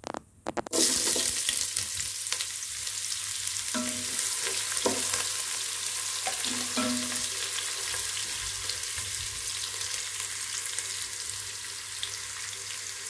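Sliced onions sizzling in hot oil, stirred with a wooden spatula in a non-stick pot. A few clicks as the onions drop in, then just under a second in a steady sizzle starts and keeps going.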